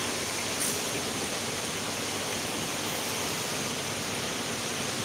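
Steady, even hiss with a faint click about half a second in.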